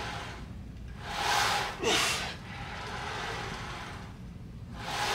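A man breathing hard while straining through leg press reps: a long forceful exhale about a second in, a shorter breath just after, and another exhale near the end.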